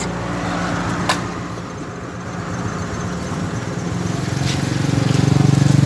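A motor vehicle engine running on the street, a low steady hum that grows louder in the second half as it comes closer. A single sharp click about a second in.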